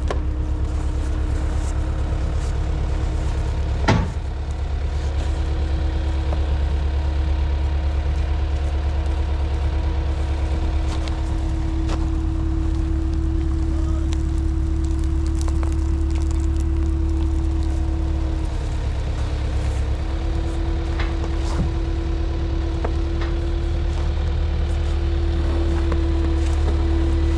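Skid steer engine running steadily under load with a constant whine, which steps up slightly in pitch about two-thirds of the way through. A single sharp knock sounds about four seconds in.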